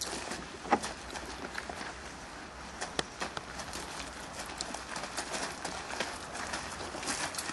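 Footsteps of several people walking slowly on gravel, making irregular crunches and clicks, with a sharper knock about three-quarters of a second in and another about three seconds in.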